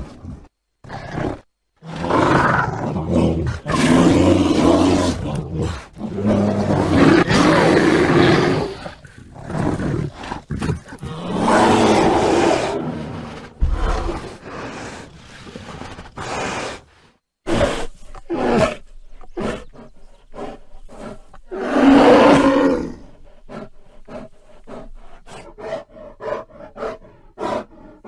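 Bear roaring and growling: a string of roars each a second or two long with short pauses between, turning in the second half into shorter, quicker growls and grunts.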